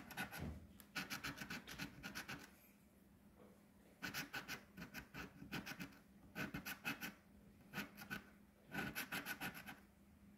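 A coin scratching the silver coating off a scratch-off lottery ticket in rapid back-and-forth strokes. It comes in several short bursts with brief pauses between them.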